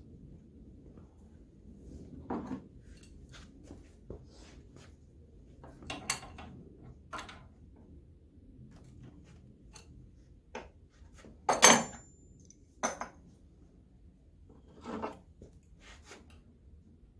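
Scattered clinks and clanks of steel hand tools and small engine parts being handled and set down on a metal workbench, at irregular intervals. The loudest is a sharp clank with a short ring about two-thirds of the way through.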